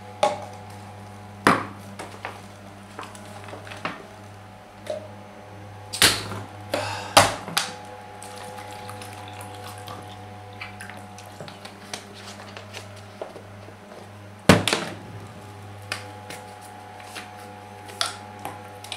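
Short knocks and clinks of a drinking glass, a plastic water bottle and a fork being set down and handled on a wooden tabletop, with water poured from the bottle into the glass, over a steady low hum.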